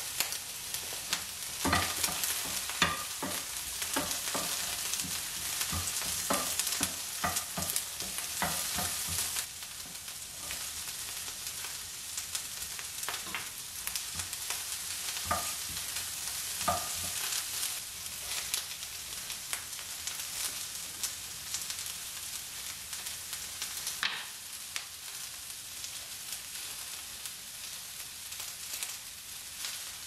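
Sliced onion and carrot sizzling in oil in a nonstick frying pan, with a wooden spatula stirring and knocking against the pan, mostly in the first half. The sizzle drops a little about a third of the way in.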